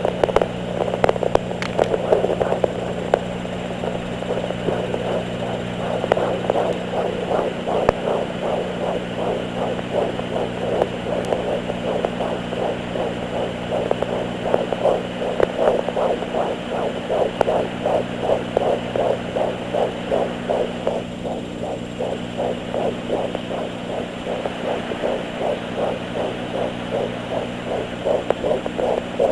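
Fetal heartbeat through a handheld fetal Doppler's speaker at 13 weeks 3 days: rapid, evenly spaced whooshing beats, about two to three a second, over a steady low electrical hum.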